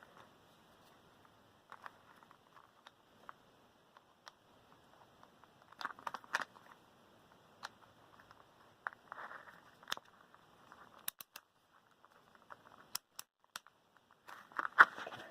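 Hands handling box-fan motor and parts: scattered sharp clicks, light knocks and short rustles, with a quick run of three clicks around the middle and more busy handling near the end.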